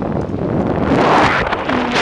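Wind buffeting the microphone while moving fast downhill on a bicycle: a loud, steady rush of wind noise that swells about half a second in.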